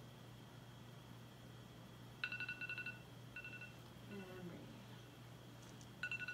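Smartphone timer alarm going off: a trilling two-tone electronic beep, first about two seconds in, then shorter repeats, starting over near the end. It marks the end of a timed hold.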